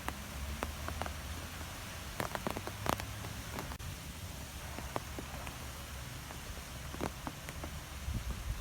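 Wind blowing through trees: a steady rush with a low rumble and scattered light ticks and taps throughout.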